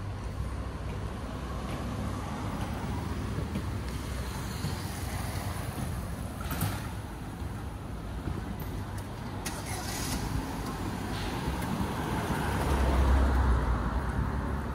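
Road traffic in a city street: a steady rumble of cars, with one vehicle passing loudest about thirteen seconds in, and a few brief sharp sounds in the middle.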